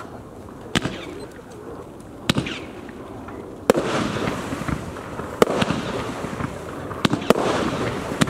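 TROPIC TB402 'Armageddon' 122-shot fireworks battery firing: sharp reports, a few at first about a second and a half apart, then coming closer together from about halfway, with a continuous crackle and rush of bursting stars filling between them.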